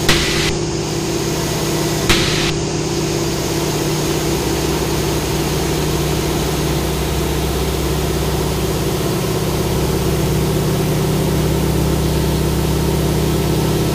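The T-6 Harvard's 600 hp Pratt & Whitney R-1340 Wasp radial engine and propeller running with a steady drone under power through a loop, heard from inside the cockpit. A deeper low rumble grows about four seconds in, and there are two brief bursts of hiss in the first few seconds.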